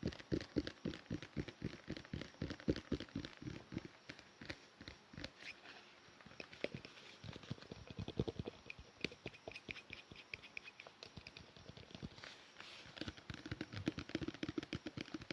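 Rapid light tapping and clicking on a perfume bottle, several taps a second in uneven runs, fainter around the middle and stronger again near the end.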